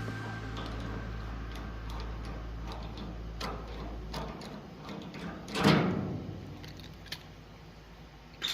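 Small metal tool clicks and knocks while a rivet nut is set with a hand installation tool, with one louder, short rasping burst about halfway through. A low hum stops about four seconds in.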